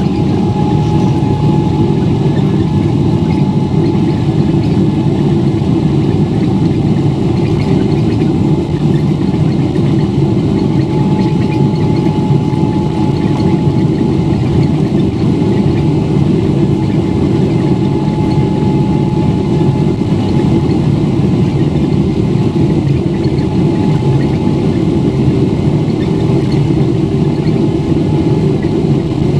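Boeing 777-300ER's GE90-115B turbofan engines running steadily at high thrust: a loud, steady low rumble with a steady whine above it, which has just risen in pitch as the engines spooled up.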